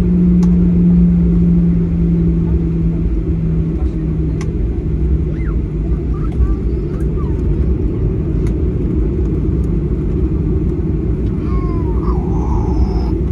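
Boeing 737-800 cabin noise: the jet's CFM56-7B engines and airframe making a loud, steady, deep rumble. A low steady hum under it fades away in the first few seconds, and a few faint clicks come through.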